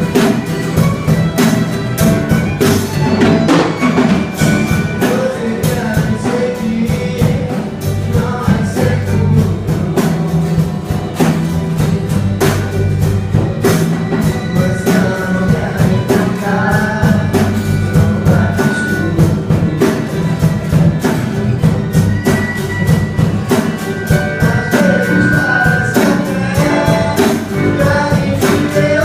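Music with drums keeping a steady beat under pitched instruments or voices.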